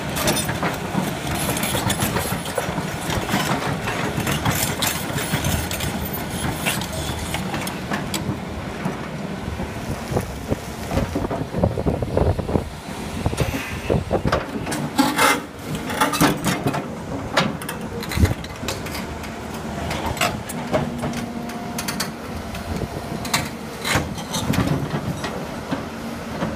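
Volvo crawler excavator's diesel engine running steadily under load while its steel bucket scrapes and knocks against a granite block, the knocks coming thickest past the middle.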